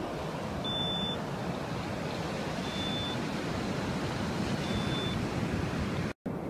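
Handheld radiation detector giving three short high beeps about two seconds apart, the first the loudest; it beeps when its count goes over background. Underneath, the steady wash of surf.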